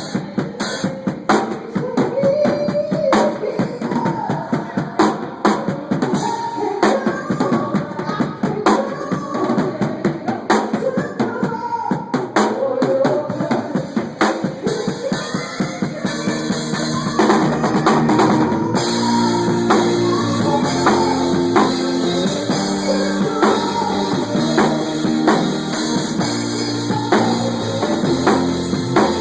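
Live band music led by a drum kit, with bass drum and snare hits. About halfway through, the band fills out with held low chords and gets a little louder.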